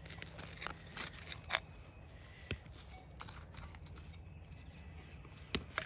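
A hand digging tool stabbing and scraping into loose dirt: a handful of short, sharp scrapes and clicks, spaced irregularly about a second apart.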